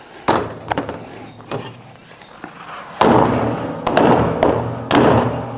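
Meat cleaver chopping raw chicken on a thick wooden chopping block: a series of heavy thuds, lighter knocks at first, then louder strokes about a second apart in the second half.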